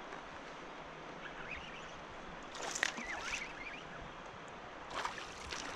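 Steady rush of wind and water around a fishing kayak, broken twice by a brief burst of clicks and chirps, once about halfway through and again near the end.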